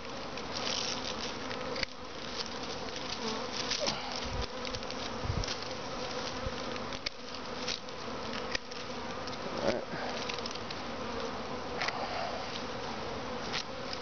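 Honey bee swarm buzzing: a steady hum of many bees, with a few sharp clicks scattered through it.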